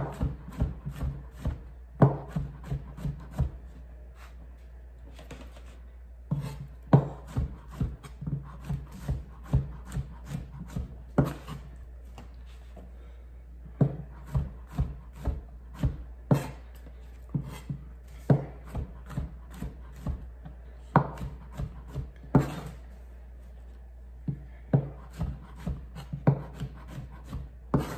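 Chef's knife slicing mushrooms on a plastic cutting board: quick runs of sharp taps, several a second, broken by pauses of a second or more, over a steady low hum.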